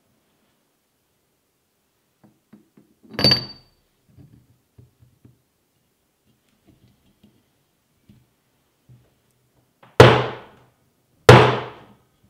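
Steel parts of a Pratt Burnerd three-jaw lathe chuck being handled during reassembly: a ringing metal clink about three seconds in and light clicks of parts being moved, then two sharp heavy knocks a little over a second apart near the end.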